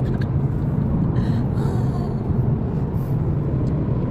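Steady low rumble of a moving car: engine and road noise at an even level throughout.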